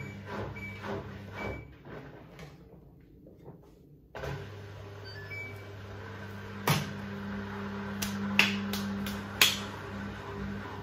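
Front-loading washing machine mid-wash: the drum tumbles the hoodies through water with rhythmic swishing, then pauses. About four seconds in a steady motor hum starts suddenly, with a few sharp knocks from inside the machine near the end.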